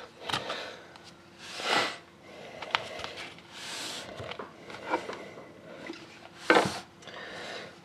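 Trading cards and their packaging being handled: several short sliding, rubbing swishes with a few light clicks and taps. The loudest swish comes about two-thirds of the way through.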